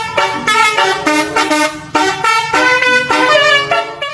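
A musical multi-tone horn playing a quick tune of short notes, stopping suddenly at the end.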